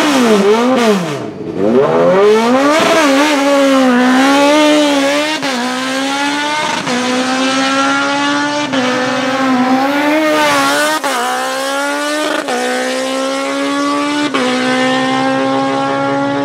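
Suzuki Hayabusa inline-four motorcycle engine in a Gloria C8P Evo hillclimb prototype. It is revved up and down in quick blips at first, then pulls hard through the gears, rising in pitch with a quick upshift every second or two.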